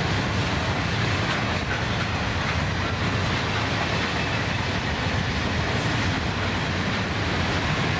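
Empty grain hopper wagons of a freight train rolling past: steady noise of steel wheels running on the rails.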